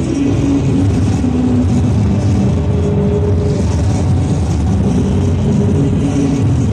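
Loud dance music over an arena's public-address system, with a heavy, blurred low end and a few held melody notes.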